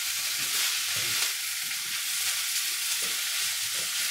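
Washed rice frying in oil in a pan, sizzling steadily, while a spoon stirs through it with soft scrapes and knocks.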